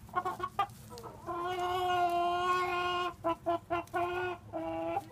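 Hens squawking as they squabble over a small snake. A quick run of short clucks is followed about a second in by one long, level squawk lasting nearly two seconds, then more short clucks and two shorter drawn-out squawks near the end.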